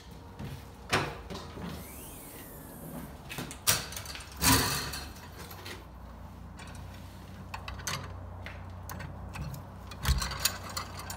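Scattered knocks and clunks of a steel fire extinguisher mount and a red extinguisher bottle being handled and seated into their cradle in a car trunk, with a cluster of knocks near the end, over a low steady hum.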